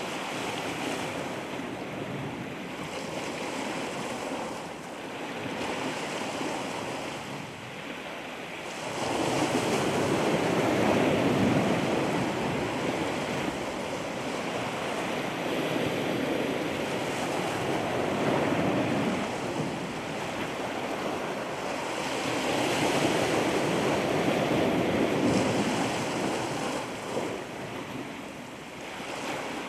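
Ocean surf washing onto the shore, rising and falling in several surges, the loudest about ten seconds in.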